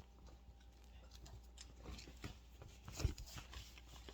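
Faint rustling and handling of gift packaging and clothing, with small scattered clicks and a soft knock about three seconds in.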